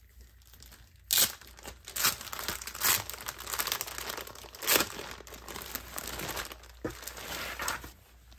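Clear plastic sleeve crinkling and crackling as it is opened and an embroidered fabric tapestry is pulled out, with several sharper, louder crackles in the first five seconds.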